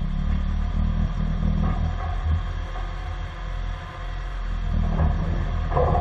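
John Deere 310D backhoe's diesel engine running with a steady low rumble.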